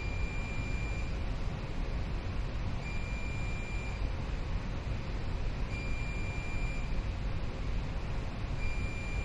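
Ship's control console alarm buzzer beeping, one steady tone about a second long, repeating every three seconds, over a steady low rumble of machinery.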